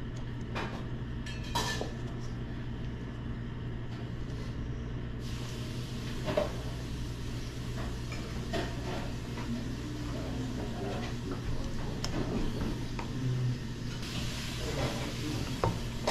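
Chopsticks and dishes clinking lightly now and then over a steady low hum of the room.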